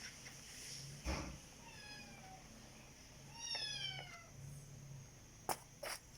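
A cat meowing twice, each call falling in pitch, about two seconds and three and a half seconds in. A thump comes about a second in, and sharp clicks near the end.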